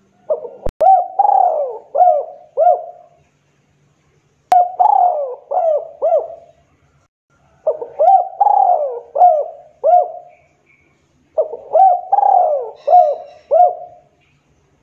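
Spotted dove cooing: four phrases of several low, repeated coo notes, each lasting two to three seconds with a short pause between. There is a sharp click near the start.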